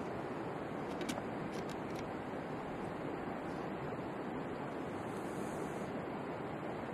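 Steady rush of river water, with a few light clicks of a knife blade working at a freshwater mussel's shell between about one and two seconds in.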